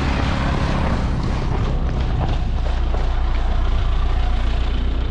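A moving road vehicle heard from on board: a steady low engine and road rumble under a constant rushing noise.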